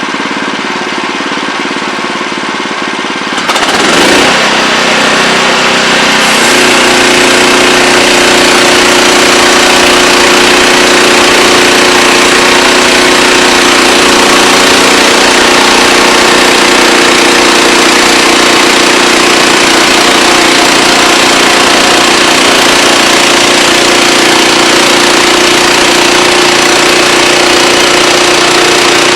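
Wood-Mizer LX25 portable band sawmill running: its engine runs steadily at low speed, revs up about four seconds in, and from about six seconds on runs louder and steady at high speed.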